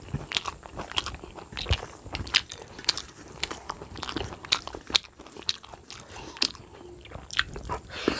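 Close-miked eating by hand: chewing and lip smacking with many irregular wet clicks, while fingers mix rice and jackfruit curry on a steel plate.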